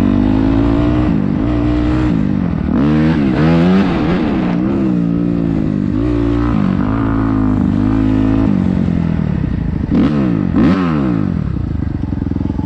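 Dirt bike engine heard from the rider's helmet, its pitch rising and falling with the throttle as it rides, with quick revs a few seconds in and again about ten seconds in, settling lower near the end.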